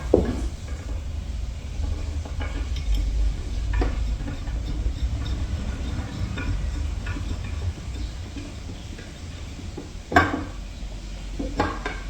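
Hardware being handled and bolts being hand-threaded into a wooden high chair's metal rods: small metallic clinks and scrapes, with a few sharper knocks of the parts being set in place, one near the start, one about four seconds in and two near the end.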